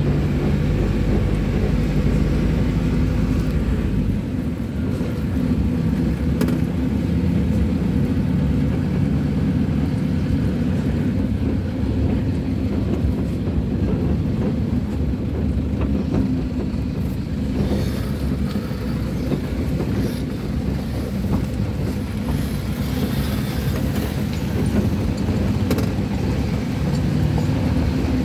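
Pick-up dump truck's engine running and tyre and road noise while driving, heard from inside the cab; the engine note shifts in pitch now and then, with a heavier low rumble for the first few seconds.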